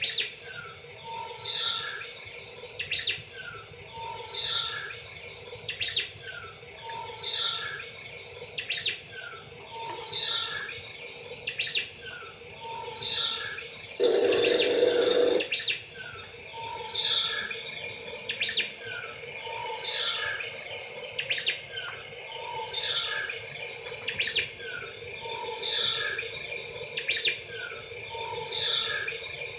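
Birdsong sound effect on a loop: the same set of chirps repeats about every two seconds. Midway a louder, rougher sound lasts about a second and a half.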